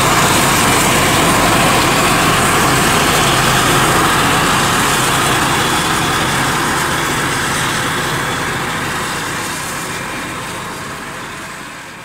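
Claas Jaguar 870 forage harvester running under load while chopping maize, a steady engine and machine drone with the tractor and silage wagon running alongside. The sound fades gradually over the second half.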